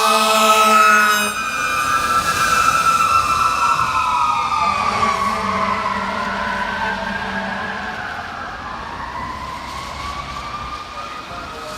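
Federal Q mechanical siren on a Seagrave fire truck, peaked and winding up and down in pitch, with the heavy air horn blasting for the first second or so before it cuts off. A second, fainter horn blast comes midway as the siren fades with the truck moving away.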